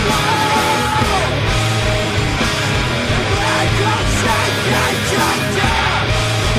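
Loud instrumental heavy rock: a full band playing steadily without a break.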